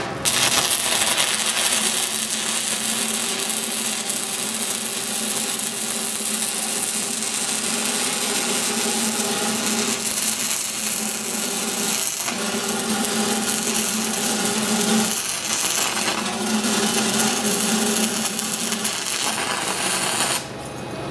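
Stick-welding arc crackling and sizzling steadily as an electrode runs a downhill root bead on pipe. The arc is struck at the start, falters briefly twice in the middle, and is broken off near the end.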